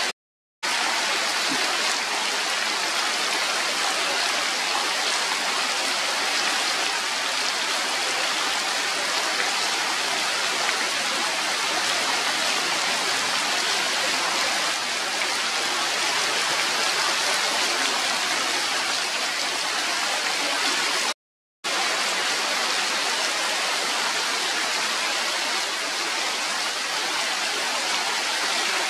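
Steady rain falling on forest leaves, an even hiss with no single drops standing out. The sound cuts out to silence twice for under half a second, just after the start and about two-thirds of the way through.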